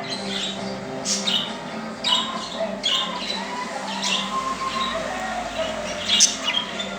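Budgerigars chattering, with short, sharp squawks and chirps recurring every second or so.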